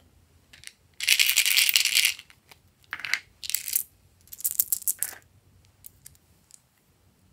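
Small plastic slime charms rattling and clattering in a plastic container as it is shaken and rummaged through: one long burst about a second in, then three shorter bursts, with a few light clicks near the end.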